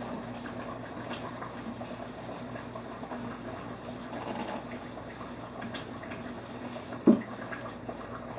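Thick asida dough being stirred and worked with a wooden stick in a steel pot: a continuous wet squelching and sloshing over a steady low hum. A single sharp knock about seven seconds in.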